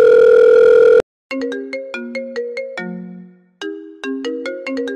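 A loud, steady buzzer tone about a second long, then a quick ringtone-like jingle of short plinking notes, about five a second, that starts over near the end.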